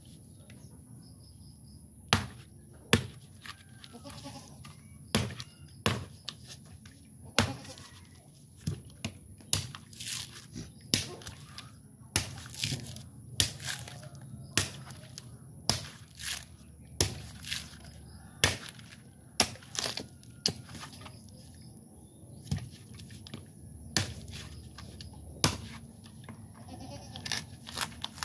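A bolo knife striking a coconut again and again: sharp knocks at uneven intervals, about one a second, sometimes two in quick succession.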